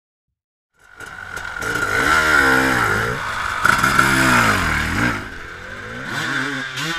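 KTM 300 two-stroke enduro motorcycle engine revving with repeated throttle blips, starting about a second in; the pitch rises and falls about three times.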